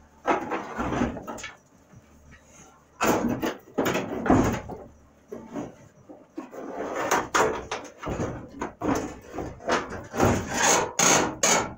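A 1977 Ford F-350's sheet-metal hood being dragged and shifted across the truck's front end. It scrapes and knocks in irregular bursts, heaviest in the second half.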